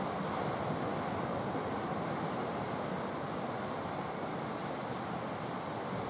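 Small sea waves breaking and washing up a sandy beach: a steady rush of surf.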